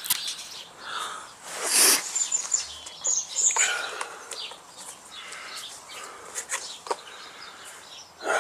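Small birds chirping in short high calls a couple of times, over irregular bursts of rustling and scraping from handling material close by.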